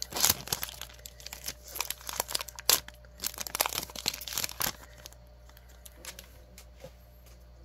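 Foil wrapper of a Pokémon card booster pack being torn open and crinkled by hand: a dense crackling that dies down about five seconds in, leaving a few faint clicks as the cards are handled.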